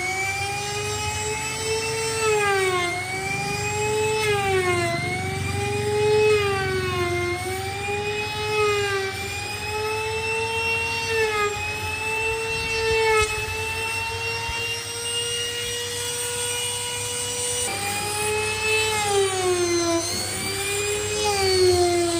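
Corded handheld power tool sanding a solid-wood slab: a steady electric motor whine that sags in pitch about every two seconds as the tool is pressed into the wood and recovers as the pressure eases, running steadier for a few seconds past the middle.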